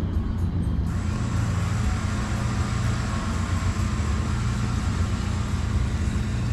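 Truck engine running steadily. About a second in, a steady hiss joins it and carries on.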